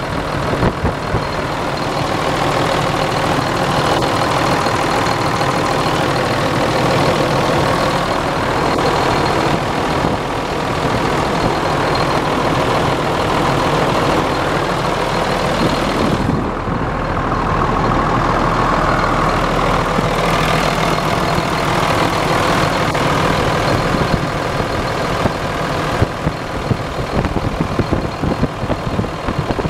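Ford Aeromax truck's diesel engine running steadily at idle, heard up close in the engine bay beside the belt-driven accessories.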